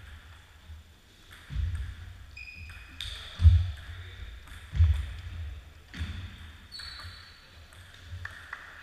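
Table-tennis play sounds on a wooden sports-hall floor: four dull thuds on the floor, the loudest a little over three seconds in, with a few sharp ping-pong-ball clicks and short shoe squeaks.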